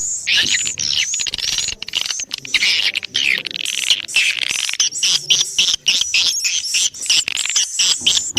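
A swiftlet lure recording: a flock of swiftlets chirping and twittering in rapid, overlapping calls, several a second. It is the call track played in swiftlet houses to draw the birds in to nest.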